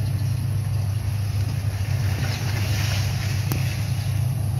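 Steady, loud low drone of a Wings Air twin-turboprop airliner's engines running out of sight on the airfield before take-off. A rushing swell builds in the middle, and there is a single sharp click about three and a half seconds in.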